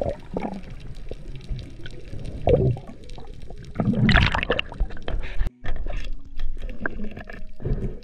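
Water sloshing and gurgling in irregular surges, with a brief sudden dropout about five and a half seconds in.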